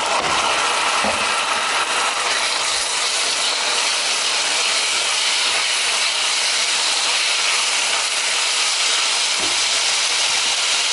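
Chopped tomatoes sizzling in hot oil in a frying pan: a loud, steady hiss that jumps up as they go in, with a couple of faint knocks of a spoon on the pan.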